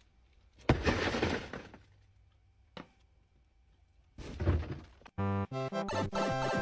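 A single hard thunk as a stick-like object is swung into a car's side window, with a crackling rattle that dies away over about a second. Near the end, bouncy comic music starts.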